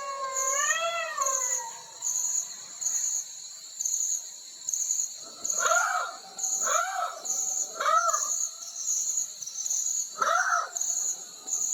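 A dog howling, one long wavering call that fades out about two seconds in, then four short yelping calls later on. Insects chirp throughout in a steady high pulse about twice a second.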